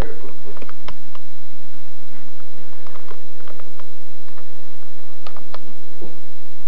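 Scattered light clicks and taps, the sharpest knock about a second in, over a faint steady hum.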